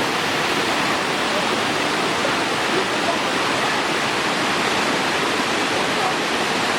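Steady rush of water from a small waterfall in a forest stream.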